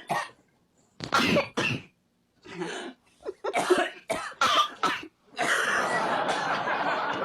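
People coughing, a run of about six short coughs, then a steady rushing hiss from about five and a half seconds in.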